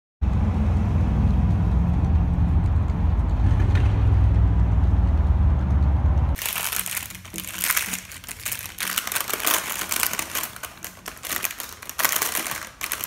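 A steady low rumble for the first six seconds, then a thin white paper bag crinkling and rustling in quick crackles as a hand opens it.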